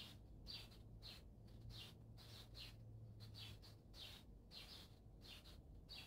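Faint, evenly repeated high bird chirps, about two a second, with a faint low hum under them for the first half.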